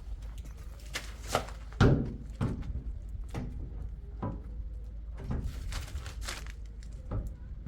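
Irregular knocks and thumps, about a dozen, the loudest about two seconds in, over a steady low hum.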